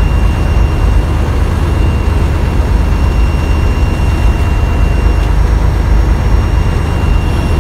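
Fishing boat under way: a diesel engine running steadily with a deep rumble, mixed with wind and water noise and a faint steady high whine.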